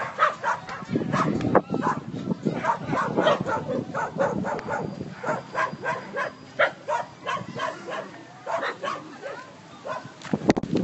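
Belgian shepherd dog barking over and over, a few barks a second, with a short lull about eight seconds in.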